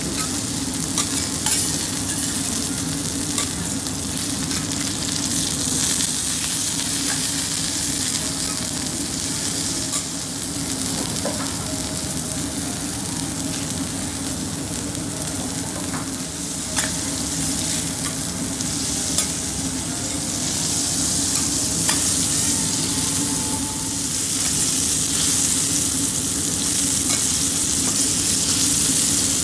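Wagyu steak sizzling steadily in oil on a teppanyaki steel griddle, with a few sharp clicks and a steady low hum underneath. The sizzle grows a little louder in the second half.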